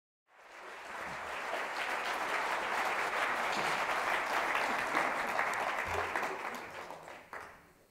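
Audience applauding in a lecture hall, swelling up just after the start, holding steady, then dying away near the end.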